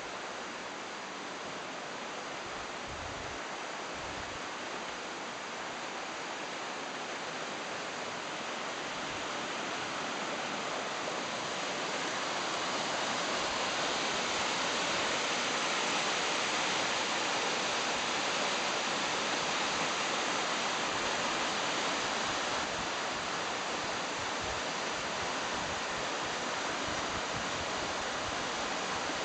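The Gave river's current rushing over shallow rapids: a steady hiss of moving water that grows louder from about a third of the way in and is loudest around the middle.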